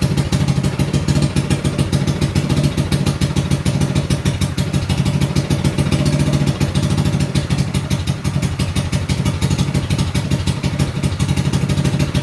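Mini bike engine running steadily with no muffler fitted, an open exhaust with a rapid, even firing beat, just after being kick-started.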